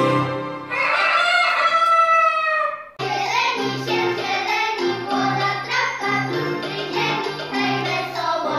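Children's metallophones ringing briefly under mallet strikes, then a long, wavering, falling call. About three seconds in, a group of children starts singing together over instrumental accompaniment.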